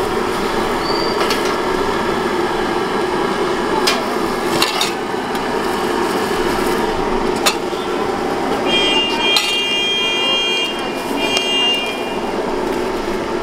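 Busy street ambience: a steady wash of traffic and street noise with a few sharp clicks. A high steady tone sounds twice past the middle.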